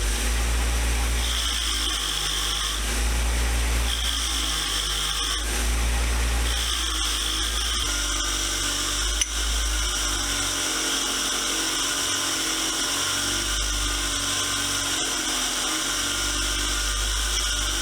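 Wire wheel on a power tool spinning steadily and brushing rust and old paint off a cast vise part. The high scrubbing sound comes and goes in short strokes about every second and a half, then holds steady as the part is kept against the wheel. One sharp click about nine seconds in.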